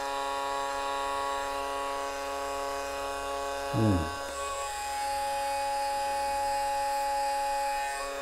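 TIMEMORE Grinder GO electric coffee grinder running empty on a test run, its small motor turning the burrs with a steady whine of several stacked tones. The whine grows a little louder about five seconds in.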